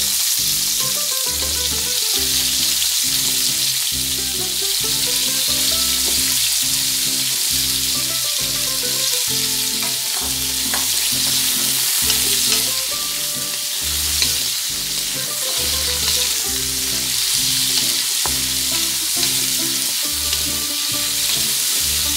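Potato and carrot cubes sizzling as they fry in oil in a nonstick wok, stirred with a wooden spatula. A steady sizzle, with a few light knocks of the spatula against the pan in the middle.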